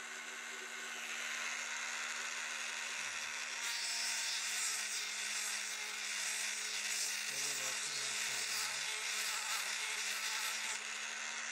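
Small electric motor of a homemade bead-making lathe running with a steady hum, while a wooden bead on its spindle is shaped by hand. The work gives a loud hissing rasp from about four seconds in until just before the end.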